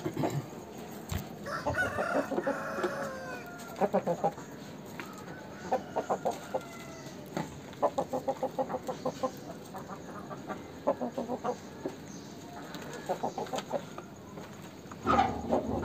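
Aseel roosters calling: one drawn-out crow about two seconds in, then several runs of quick, evenly spaced clucks, and a louder call starting near the end.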